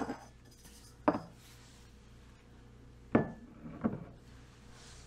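Bottles and containers being set down and handled on a kitchen countertop: four short knocks, two of them close together about three seconds in.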